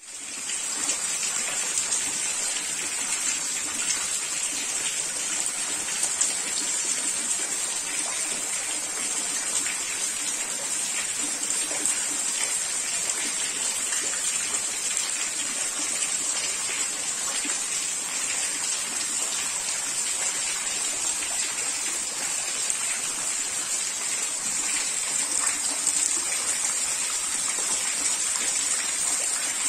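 Heavy rain pouring down, with runoff streaming off a corrugated roof and splashing onto the ground: a steady, dense rush of water.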